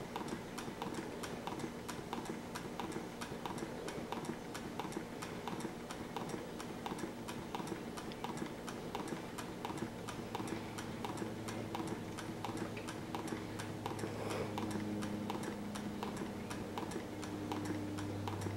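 Homemade tin-can Stirling engine running, giving a rapid, even ticking. A low steady hum joins about halfway through and grows louder toward the end.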